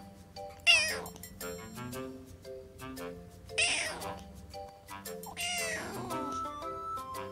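Tabby kitten meowing three times: a sharp, loud call about a second in, another just past halfway, and a longer one that falls in pitch near the end.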